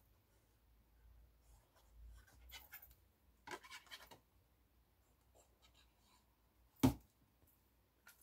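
Faint rustling and scratching of card stock being handled while glue is dabbed on, then a single sharp knock about seven seconds in.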